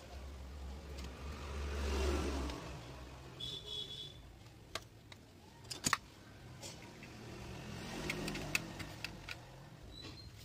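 A low rumble swells and fades over the first two seconds and again near the end. In between come a few sharp clicks and knocks from the plastic speaker housing being handled.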